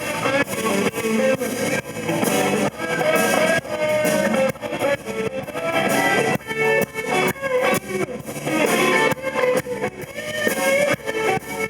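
Blues band playing an instrumental passage with guitar to the fore over a steady beat, between sung verses.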